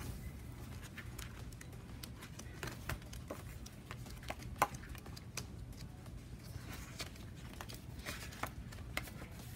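Sticker book pages being handled and turned on a desk: faint paper rustles and light scattered taps, one a little sharper about halfway through.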